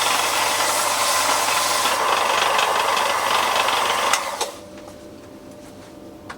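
Electric sander running against timber, with a dust extractor drawing through its hose, a loud steady grinding hiss. About four seconds in the sander cuts off, leaving a much quieter hum with a faint steady tone and a small knock near the end.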